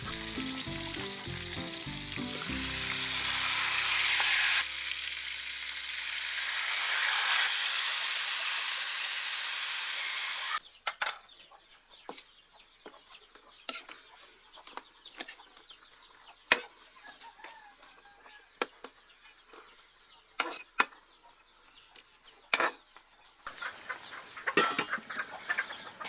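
Food sizzling as it fries in a pan, a steady hiss that cuts off abruptly about ten seconds in. After that come scattered sharp clicks and taps.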